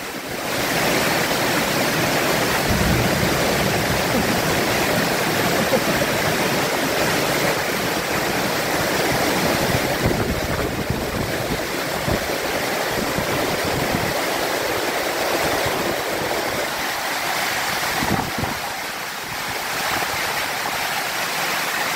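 Heavy tropical rainstorm: torrential rain and strong wind blowing into an open-sided shelter as a steady loud rush, with gusts rumbling low every so often.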